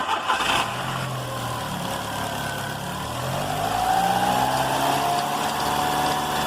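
Car engine cranked and catching at once, then running at idle. Over the idle a thin high-pitched whine slides down in pitch and holds: the cricket-like chirp from the crankshaft-driven accessory belt, which the owner says could be a worn belt, a belt rubbing on plastic or a bad alternator bearing.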